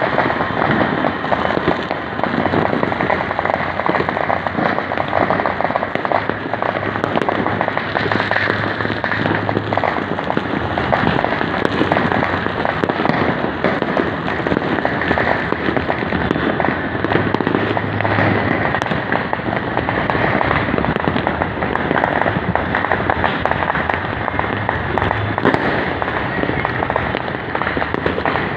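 Many fireworks and firecrackers going off across a city at once: a dense, unbroken crackle of pops and bangs at a steady level, with no single burst standing out.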